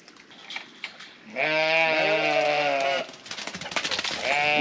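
A farm animal bleating: one long, slightly wavering call starting about a second and a half in and lasting over a second, then a second call beginning near the end.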